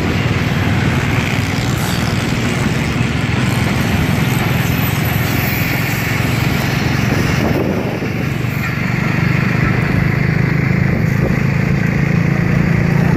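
Express passenger train running past close by: a steady loud rumble of the coaches rolling on the track, with a rushing noise over it.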